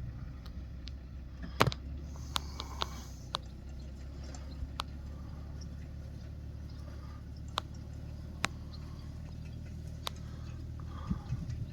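Tractor engine running steadily as a low drone, with scattered sharp clicks and rattles over it, the loudest about a second and a half in.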